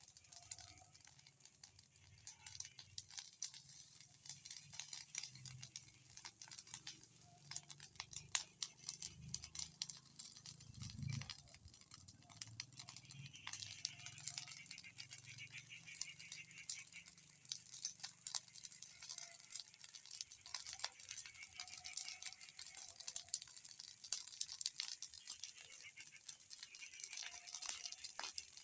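A bonfire crackling: a dense, irregular run of small snaps and pops that goes on throughout, fairly faint.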